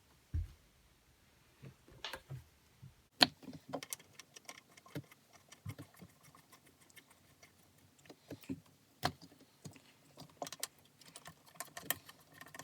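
Scattered light clicks, taps and clinks of hand work on a two-stroke Sea-Doo engine, with spark plugs and tools being handled as the plugs go back in; the engine is not running.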